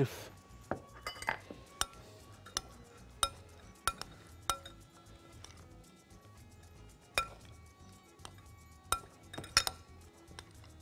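Metal spoon clinking against a glass mixing bowl while a dressed tomato and onion salad is tossed: about a dozen sharp clinks at irregular intervals, with a pause of about two seconds midway.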